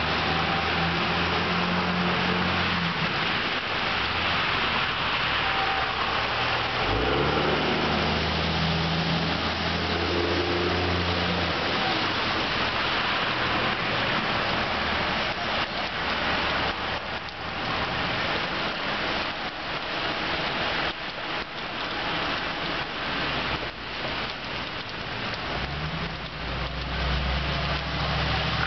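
Steady rain falling on a flooded street, with cars driving through the standing water: engine hum and the swish of tyres throwing spray. Vehicles pass three times, in the first few seconds, from about seven to twelve seconds in, and near the end.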